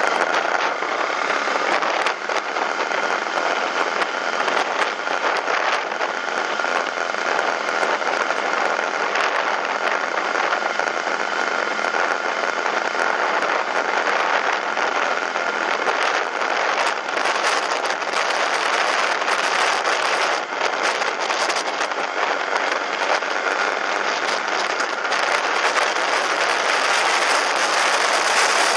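BMW F800ST parallel-twin motorcycle riding at road speed, heard from a camera mounted on the bike: steady engine and wind noise with a faint constant whine, growing slightly louder near the end.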